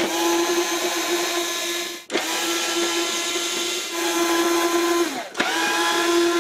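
Cordless power screwdriver running at a steady whine, backing out the screws that hold the two halves of a portable air conditioner's blower housing together. It runs in three stretches, with short breaks about two and five seconds in.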